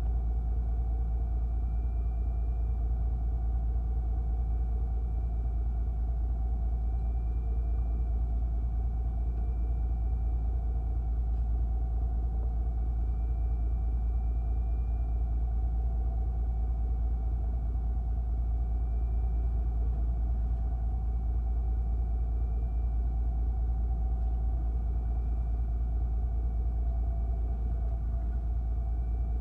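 Fishing boat's engine running steadily with a low rumble, with a faint high whine that wavers slightly in pitch.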